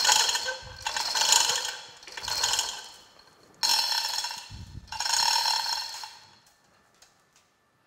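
Manual chain hoist lowering a load: the hand chain rattles and clinks through the hoist in about five spells of pulling, then stops near the end.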